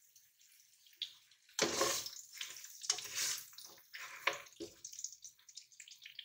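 Plastic spatula stirring and turning chicken pieces in a nonstick wok: a run of irregular scraping, shuffling strokes that start about a second and a half in, a few louder than the rest.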